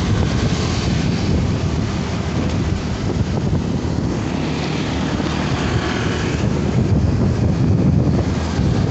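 Wind rushing over the microphone of a moving motorcycle, with steady engine and road noise underneath.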